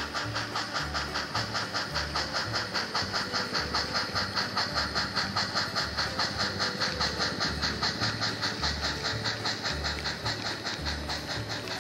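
Steam exhaust chuffs from the sound decoder of a Blackstone HOn3 model steam locomotive, a steady hissing beat of about five chuffs a second.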